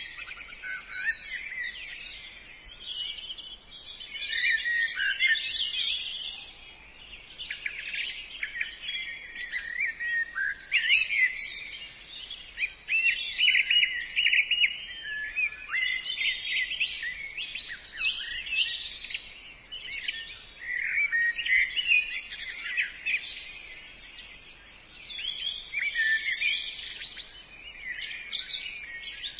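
Several songbirds singing at once: a dense, continuous chorus of overlapping high chirps and warbles.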